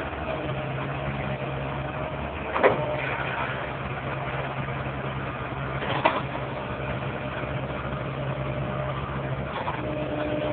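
Komatsu hydraulic excavator's diesel engine running steadily under work. Two sharp knocks stand out, one about a quarter of the way in and one a little past halfway, as the bucket works at a tree stump.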